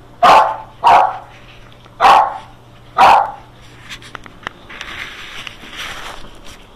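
Dog barking four times, about a second apart, followed by quieter clicks and shuffling.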